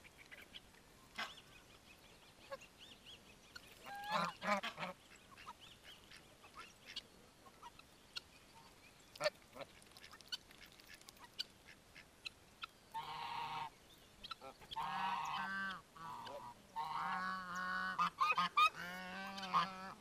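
Domestic geese honking: one short call about four seconds in, then long runs of repeated honks over the last seven seconds. A few short ticks fall in between.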